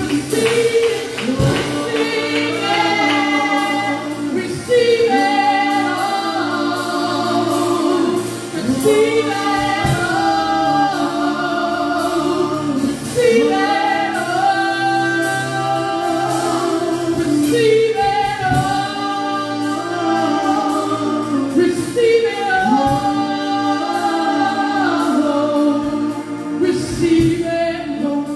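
Church worship team singing gospel music in long, drawn-out phrases, with held notes that waver, over a steady sustained accompaniment.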